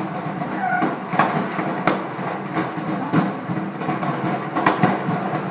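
Large fire at an exploded petrol station burning with a steady rumbling roar, broken by irregular sharp pops and cracks.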